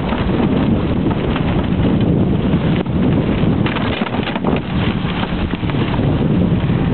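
An 18-dog sled team running fast: a steady rush of wind on the microphone and the rig moving over the trail, with a dense, rapid clatter throughout.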